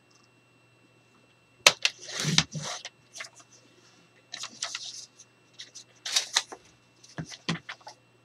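A Tyvek envelope sheet handled on a plastic paper trimmer: sharp clicks and short rustles in irregular bursts, starting after a quiet first second and a half.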